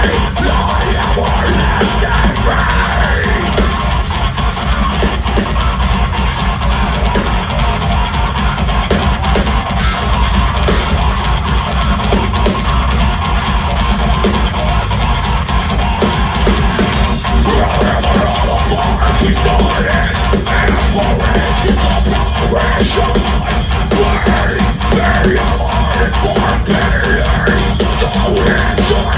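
Live progressive metalcore band playing loud through a club PA: heavily distorted electric guitars over a drum kit with rapid kick-drum hits.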